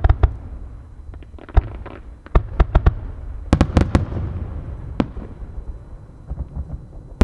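Aerial firework shells bursting: a run of sharp reports, some in quick clusters of three or four, over a low rolling rumble between them.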